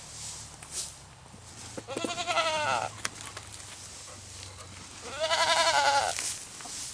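A goat bleating twice, each call about a second long with a wavering pitch.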